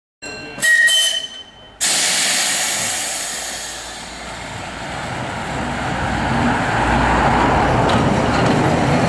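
A short ringing sound in the first second or so. Then the running sound of Manx Electric Railway crossbench tram car 33 as it approaches on its track, growing louder as it nears.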